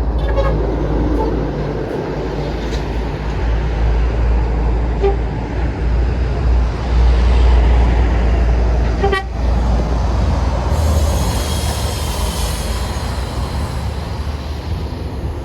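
Bus passing close, its diesel engine giving a heavy low rumble, with short horn toots over it; a hiss starts about eleven seconds in.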